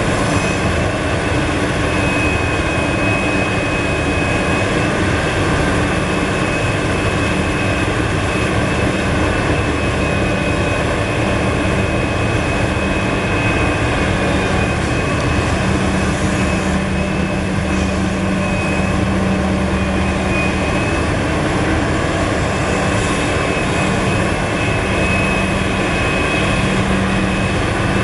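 Heavy diesel engines of a Liebherr R974 crawler excavator working while loading a Caterpillar 769D dump truck: a steady engine drone with a thin high hydraulic-like whine that comes and goes. The low engine tone grows stronger about halfway through as the excavator works under load.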